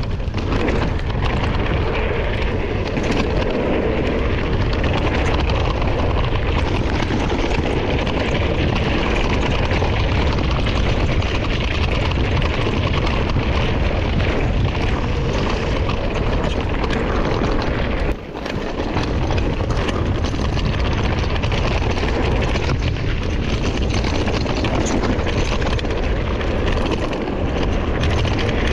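Wind buffeting a mountain biker's on-board camera microphone, mixed with the rumble and rattle of the bike rolling fast down a dirt flow trail. The noise is loud and steady, with a brief sharp dip about eighteen seconds in.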